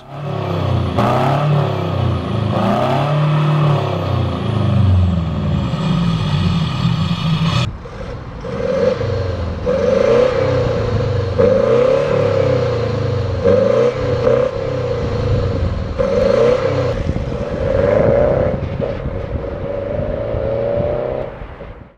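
Subaru EE20 2.0-litre boxer turbo-diesel in a Forester with a custom exhaust, revved up and down several times while standing. After a cut, a Forester diesel accelerates away with a rising engine note repeated several times, fading with distance near the end.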